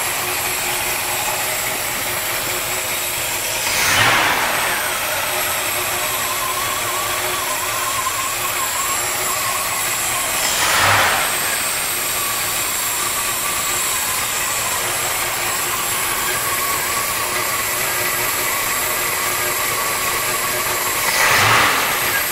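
Chevrolet 454 big-block V8 running at a steady idle, with three short throttle blips where the revs rise and fall back: about four seconds in, about eleven seconds in, and near the end.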